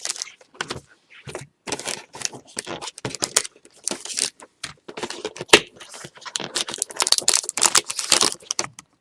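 Trading card packs and their foil wrappers being handled and torn open, an irregular run of crinkling and rustling with a sharp snap about halfway through.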